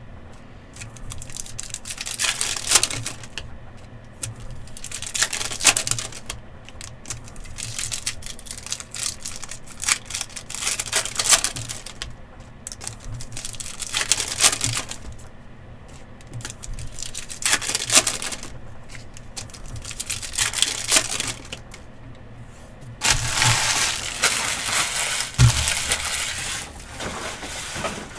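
Optic Hobby football card packs being torn open and the cards handled: repeated short crinkling and tearing of the foil wrappers, with a longer stretch of steady rustling near the end.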